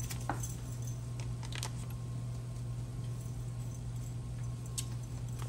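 A steady low hum with a few light, separate clicks and taps as the container of brown gravy mix is handled over the pan.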